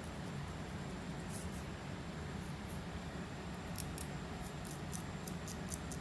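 Fine-tooth comb scratching along the scalp through a parted section of hair, lifting dandruff flakes: short, crisp scratches, once early and then several in quick succession in the second half.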